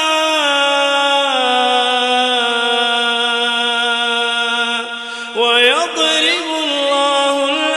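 A male reciter chanting the Quran in slow, melodic tajwid, drawing out long held notes that step down in pitch. About five seconds in, his voice drops briefly, then sweeps quickly upward into the next phrase.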